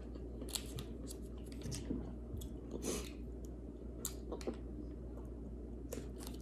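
Close-miked chewing of food with the mouth closed: soft, irregular clicks and crackles every second or so.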